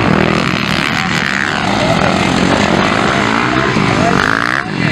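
Motocross bikes' engines revving, the pitch rising and falling as riders open and close the throttle around the dirt track, with a brief break near the end.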